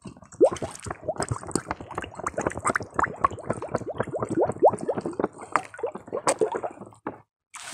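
Bottle being filled with river water, gurgling and glugging as air escapes in a quick run of short rising blips, stopping abruptly about seven seconds in.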